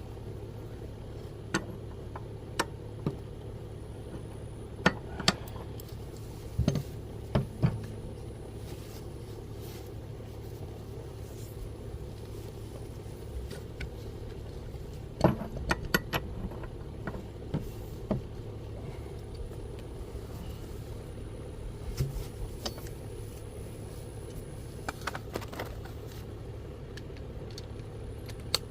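Scattered metal clinks and clanks of tools and parts being handled during lawnmower blade removal, a few at a time, over a steady low hum.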